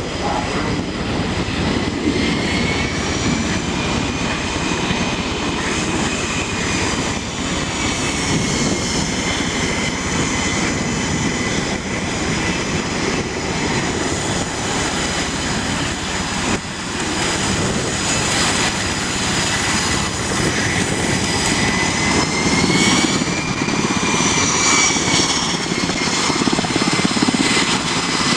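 Aircraft turbine engines running on a carrier flight deck: a steady, loud roar with a high whine that slowly drifts up and down in pitch.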